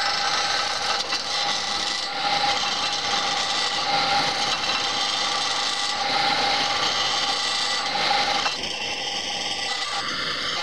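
Wood lathe spinning a long wooden blank while a skew chisel cuts along it: a steady cutting hiss over a steady hum, a little quieter about eight and a half seconds in.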